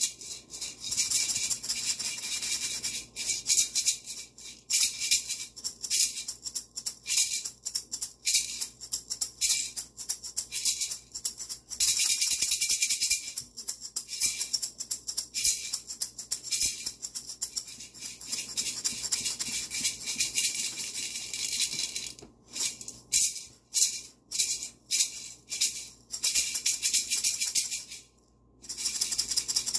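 A pair of maracas shaken rapidly over a cat's back, a dense, steady rattle of beads. In the last several seconds it breaks into separate short shakes with brief gaps.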